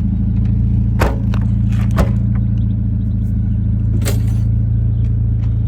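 Mercedes-Benz C230 engine idling with a steady, low exhaust drone, which the owner puts down to a hole in the muffler or the catalytic converter. A few short sharp clicks about one, two and four seconds in.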